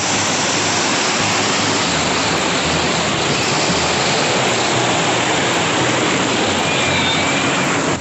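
Waterfall water pouring and splashing over rocks, heard up close as a steady, dense rush.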